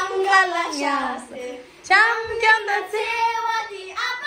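A young girl singing in a high voice: a long note that slides down in pitch, a short break, then a second long, steadier note.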